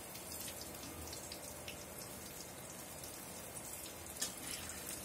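Bondas deep-frying in hot oil in a kadai: a steady, quiet crackling sizzle with scattered small pops, and one sharper click about four seconds in.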